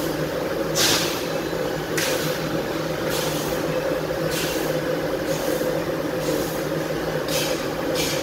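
Mitsubishi NX fiber laser cutting machine running with a steady hum, with short hissing bursts repeating every second or so.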